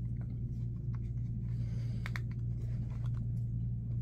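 Faint clicks and scuffs of a plastic gaming headset being handled, a cluster of them about two seconds in, over a steady low hum.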